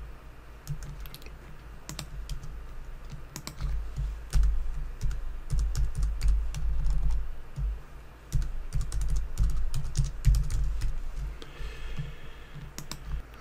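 Typing on a computer keyboard: irregular key clicks over dull low thumps.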